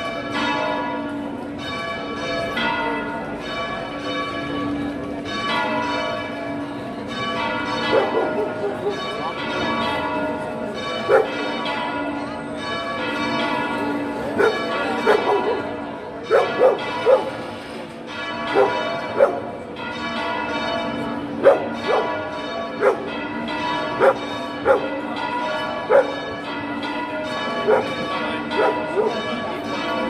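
The bells of the Cathedral of La Redonda ringing a peal, several bells struck over and over, their tones overlapping. From about eight seconds in a dog barks again and again, short sharp barks louder than the bells.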